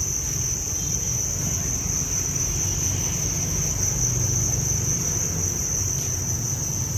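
A mass of farmed Thai crickets in their breeding boxes chirping together, a steady high-pitched trill with no break, over a low rumble.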